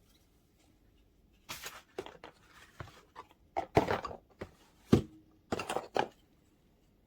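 A run of sharp plastic clicks and knocks, irregular and grouped, from handling the Goweto 3-in-1 keyboard vacuum and air duster with its motor off. It starts about a second and a half in and stops about a second before the end.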